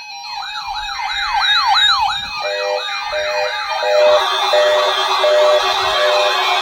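Several electronic alarms sounding together: a siren yelping in quick up-and-down sweeps, about three a second, over a steady alert tone. A lower tone starts beeping about twice a second partway in, and the sound grows denser with more overlapping sweeps.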